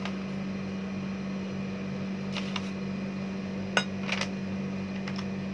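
A steady low hum, with a few light clicks and taps as a metal spoon and a baking-powder sachet are handled over a cooking pot; the sharpest click comes almost four seconds in.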